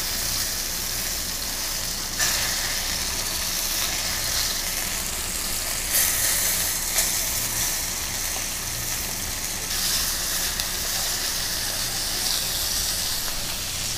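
Thick snook fillets sizzling steadily in hot oil in a wok, being blackened over medium-high heat. There are a few brief louder spurts of sizzle as the pieces are turned with metal tongs.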